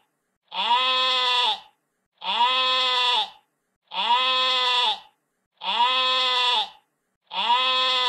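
Sheep bleating "baa", the same call repeated five times at an even pace, each about a second long, with a short silence between.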